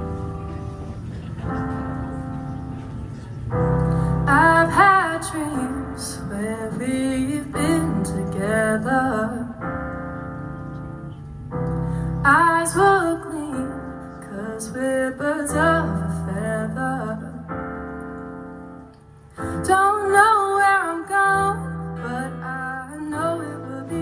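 Live band music: sustained keyboard chords changing every couple of seconds, with a woman singing over them in phrases that come in about four seconds in, again near the middle, and again toward the end.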